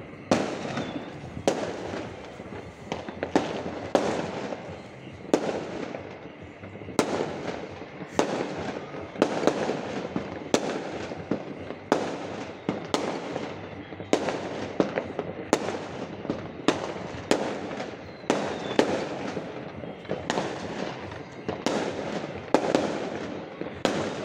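Fireworks display going off: a steady run of sharp bangs, about one a second, with echoes filling the gaps between them.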